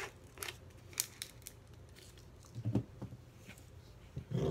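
Faint handling sounds on a plastic-covered work table: scattered small clicks and light rustles, with a soft knock a little under three seconds in.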